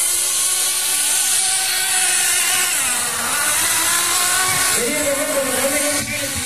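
Radio-controlled race cars' small engines running at high revs, their pitch rising and falling as they accelerate and slow. Several engine notes overlap, and a lower one joins about five seconds in.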